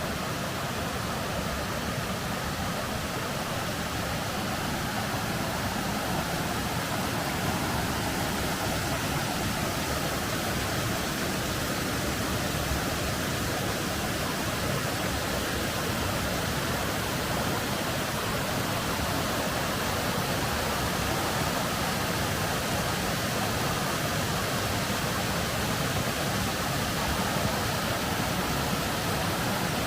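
Waterfall rushing steadily, water pouring over rock on a creek.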